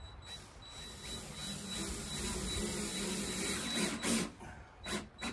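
Cordless drill running for about four seconds, driving a screw part of the way in through the bulky part of the vinyl lattice, then stopping. A few sharp knocks follow near the end.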